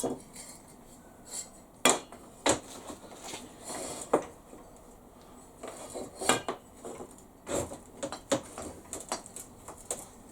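Irregular metallic clinks and knocks of square steel tube being handled and fitted into a homemade jockey-wheel pipe clamp, with a few louder knocks about 2 s, 6 s and 7.5 s in.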